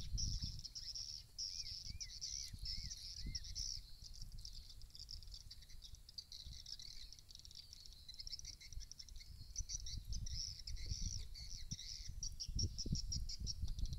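Swiftlets twittering: a dense run of rapid, high chirps, with a few lower rising-and-falling chirps a couple of seconds in. Wind buffets the microphone near the start and again near the end.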